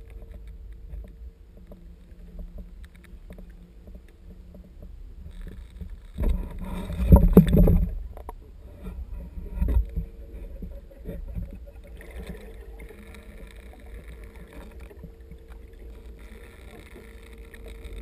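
Muffled underwater sound through a GoPro Hero 2's waterproof housing held just below the surface: water sloshing and rushing against the housing over a steady low hum. A louder surge of water rush comes about six to eight seconds in.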